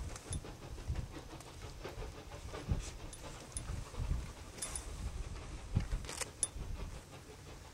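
Two QJ 2-10-2 steam locomotives working hard upgrade, their exhaust beats heard from far off as a low, uneven chuffing.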